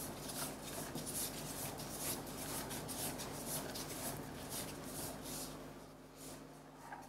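Metal spatula spreading and smoothing whipped cream over the top of a cake: a run of soft scraping strokes, about two or three a second, that stop about five and a half seconds in.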